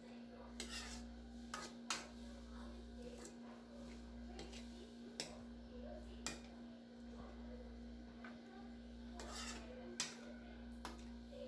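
A spatula scraping and knocking against a wok as vegetables are stir-fried, with irregular faint scrapes and clacks about once a second over a steady low hum.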